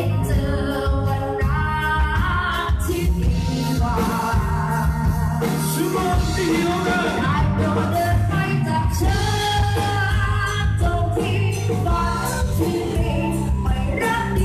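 Live band playing through the venue's PA, with a singer's voice over steady bass and drums.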